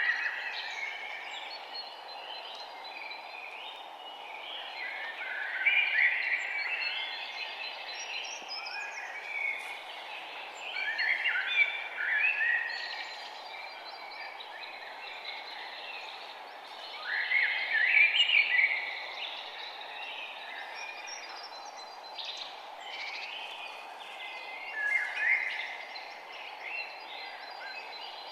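Songbirds singing in bursts every few seconds, with the loudest phrases around 6, 11, 17 and 25 seconds in, over a steady low background hiss.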